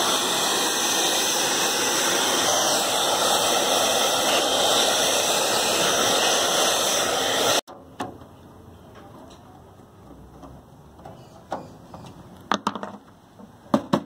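A hair dryer blowing steadily into an open desktop computer case, cutting off suddenly about halfway through. After it, a few scattered clicks and knocks from a screwdriver and the metal computer case.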